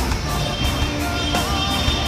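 Music with a steady beat, about one beat every three-quarters of a second, under a melody line.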